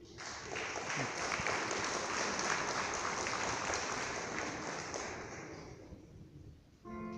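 Audience applauding, swelling quickly and then dying away over about six seconds. Just before the end, instrumental music starts.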